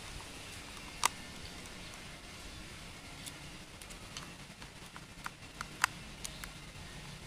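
Small metal clicks and ticks as a screwdriver drives screws into the side plate of a Sougayilang Thunder LS40R overhead fishing reel during reassembly. One sharp click comes about a second in, then a cluster of clicks between about five and seven seconds, over a faint steady low hum.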